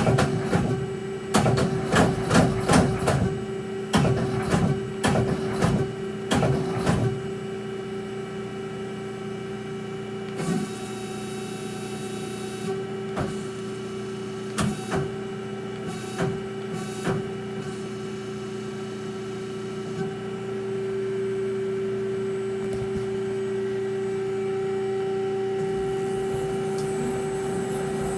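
ACRA CNC-1440 CNC lathe running with a steady motor hum. Clicks and knocks come thick in the first several seconds and sparsely later, with a brief hiss near the middle. The hum steps up slightly and holds steady for the last third.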